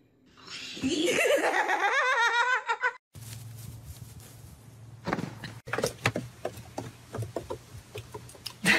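A person's high-pitched, wavering laughter that cuts off abruptly about three seconds in. A low steady hum follows, with scattered small knocks and brief snatches of voice.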